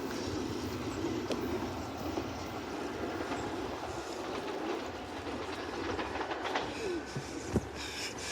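A SEPTA Silverliner V electric multiple-unit train rolling past, steady rumble with wheels clicking over the rail joints and a few short wheel squeals near the end.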